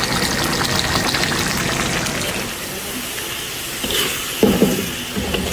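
Rendang cooking in a wok: a steady sizzle and bubble of meat and spice paste in hot oil and coconut sauce, with a fine crackle. A short pitched sound breaks in about four and a half seconds in.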